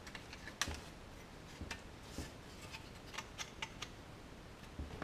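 Light clicks and taps of a sheet-metal car-radio mounting sleeve being worked out of its plastic dashboard surround by hand: scattered sharp ticks, with a quick run of them a little past the middle.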